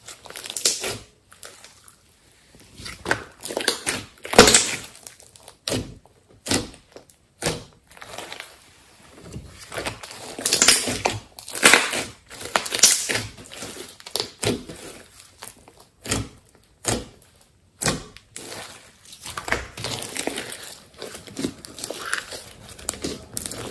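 Hands squeezing and kneading a large batch of thick slime. It makes irregular squishing and crackling as air pockets are pressed out, in uneven bursts with louder clusters about four seconds in and around the middle.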